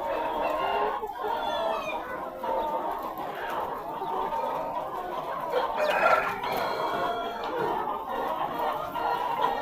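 A large flock of chickens clucking and calling over one another without a break, with a louder call standing out about six seconds in.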